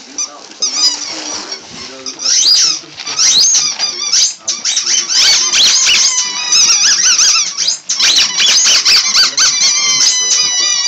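Dog chewing a squeaky toy, setting off rapid, repeated high-pitched squeaks that come thicker and almost without a break from about halfway in, with a few longer squeaks falling in pitch near the end.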